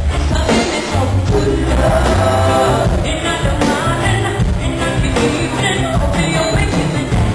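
Live reggae band with a deep, repeating bass line and drums playing a steady groove, and a woman singing over it.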